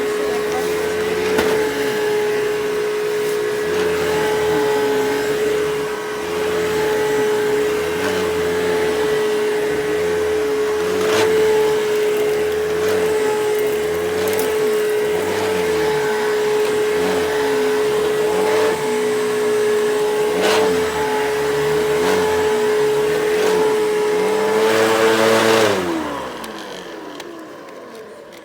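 Eureka Capture Pet bagless vacuum cleaner running with a steady whine and a rough-sounding brush roll, pushed back and forth in regular strokes with a few clicks. Near the end it is switched off and the motor winds down, its whine falling in pitch and fading.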